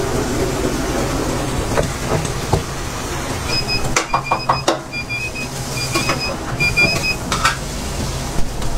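Food-stall kitchen noise: a steady low machine hum, with a few sharp clacks around the middle and a string of short, high electronic beeps over the middle few seconds.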